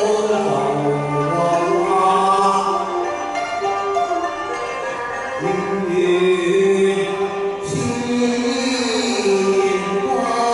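A sung Cantonese duet with musical accompaniment: a man singing long, wavering held notes through a microphone over the backing music.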